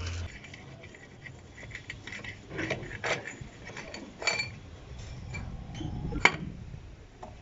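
Metal tools and parts clinking and clanking during work on a truck wheel: a few separate knocks, one with a brief metallic ring about four seconds in, the loudest about six seconds in.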